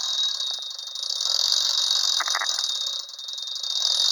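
Clockwork motor of an early-1950s Japanese wind-up Santa toy running after being wound, a loud, high-pitched whirring buzz with a fast ticking rattle that swells and dips. The owner says this noise is normal for these toys rather than a fault, and believes it is loud because the mechanism sits at the bottom of the toy's chimney, which echoes it like a tunnel.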